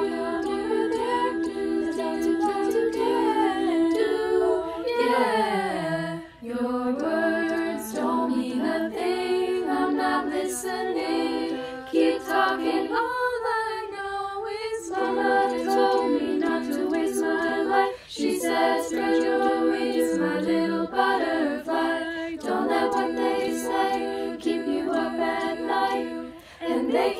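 Female a cappella group singing in multi-part harmony, holding sustained chords, with a sweeping downward slide in the voices about five seconds in.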